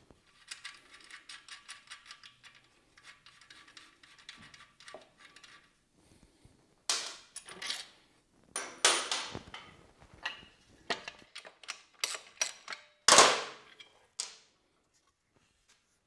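Ratchet wrench clicking rapidly as a 12 mm socket works the rear bolt of a motorcycle's stock exhaust mount. After about six seconds it gives way to several sharp metal clanks and knocks of parts and tools being handled.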